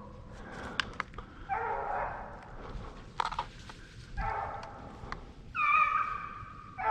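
Hunting hounds baying, three drawn-out calls, the last and loudest near the end.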